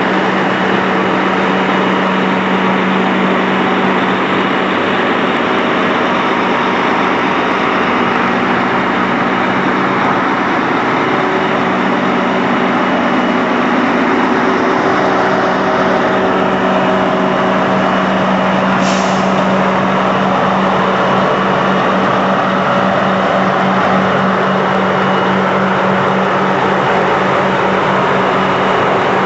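Diesel engines of two double-decker panoramic coaches running steadily with a low, even drone. A brief hiss comes about two-thirds of the way through.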